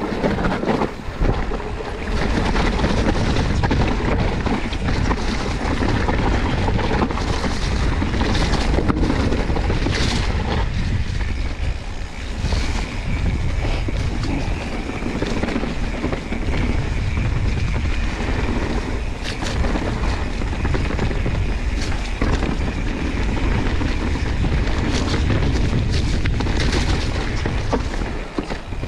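Mountain bike riding down a wet forest dirt trail: tyres rolling over the ground and the bike rattling, with a sharp knock now and then over bumps, and wind buffeting the camera microphone.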